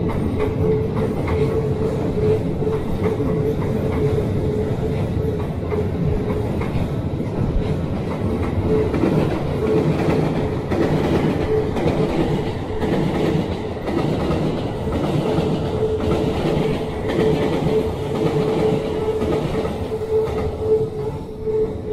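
Hokuso 7500 series electric commuter train running past at close range: continuous wheel-on-rail noise with a steady tone humming through it.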